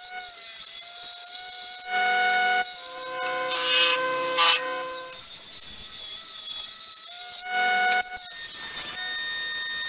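Woodworking jointer-planer machine running with a steady motor whine as a timber board is fed over its cutter block. The cutting noise gets much louder in two short passes, about two seconds in and again near eight seconds.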